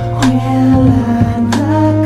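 Music: held notes over a steady bass line, stepping up in pitch about one and a half seconds in.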